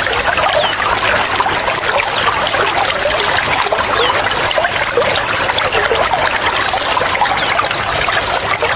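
Water trickling and gurgling steadily, with small birds chirping throughout in short, high, falling notes, some in quick runs of several.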